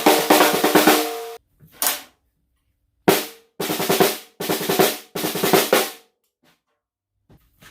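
14x4 copper-shell snare drum played in quick runs of rapid strokes, each run ringing out with a sustained overtone, separated by single hits and short pauses. Near the end there is a longer silence.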